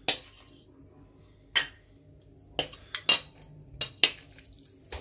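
A metal spoon clinking against a glass bowl and a stainless steel ring mould while raw steak tartare is spooned into the mould: about eight sharp, irregular clinks.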